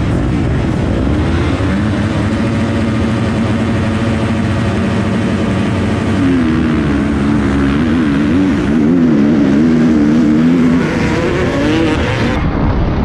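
Motocross motorcycle engines racing in a pack, the nearest bike loudest. Its pitch holds fairly steady for the first few seconds, then rises and falls rapidly with the throttle from about halfway on.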